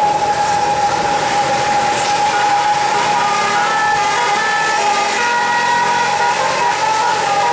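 Tour bus's Basuri telolet multi-trumpet horn playing loudly: one held note, with a tune of short stepping notes sounding above it from about three seconds in.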